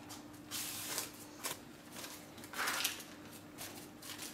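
Paper lining rustling in a few short swishes as it is peeled away from the sides of a chilled, set cake, with one louder crinkle near the end.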